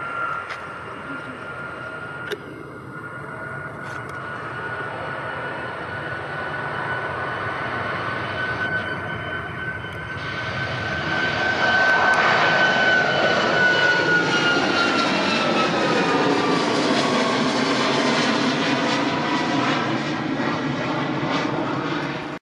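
Jet airliner passing close by: its engine noise builds steadily to a peak about halfway through, and as it goes past the engine whine drops in pitch.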